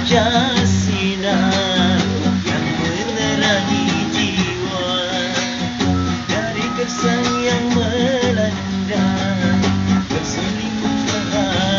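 Acoustic guitar strummed and picked without pause in an instrumental break between sung lines of a love song.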